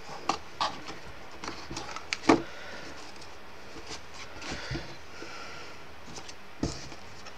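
Stiff 240 gsm card being folded and handled: scattered light clicks and rustles, with one sharper knock a little after two seconds in and another near the end.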